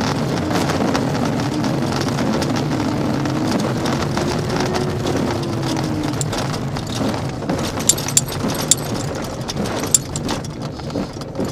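Speed Astir glider's single main wheel rumbling over grass during the ground roll after landing, with airflow noise around the closed canopy and a faint tone wavering in pitch for the first few seconds. Sharp knocks and rattles from bumps come about eight to ten seconds in as the rumble begins to fade with the glider slowing.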